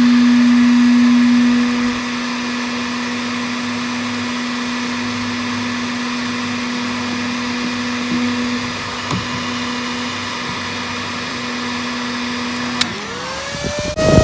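Handheld heat gun blowing with a steady hum, louder for the first couple of seconds. Near the end a click, then the RV refrigerator's original cooling fan spins up with a rising whine and settles into a steady high whine, set off by the fridge's heat sensor.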